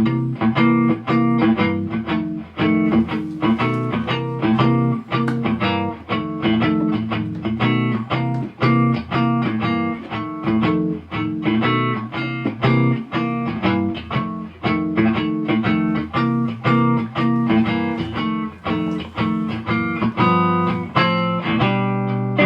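Electric guitar played through an amplifier and speaker cabinet: a quick, continuous run of picked single notes over a steady lower accompaniment.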